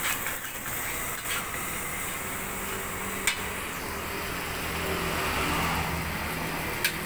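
Fried rice cooking in a wok over a gas burner: a steady rushing noise with a low hum, and two sharp clacks of the metal spatula on the wok, a little over three seconds in and near the end.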